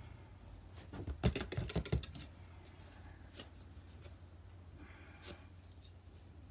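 Light clicking and tapping from painting tools being handled: a quick run of about a dozen taps a second in, then a few single clicks, over a faint low hum.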